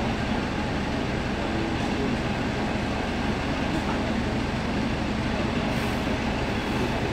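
Steady low rumbling background noise with no distinct events, like the inside of a moving vehicle.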